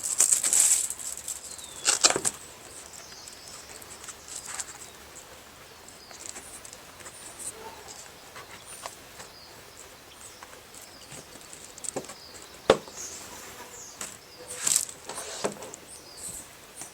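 Scattered rustles and light clicks of things being handled, with one sharp click near the end.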